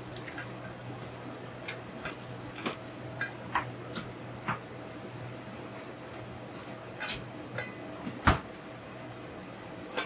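Kitchen prep sounds: scattered light clicks and knocks of utensils and dishes, with one sharper knock about eight seconds in, over a steady low hum.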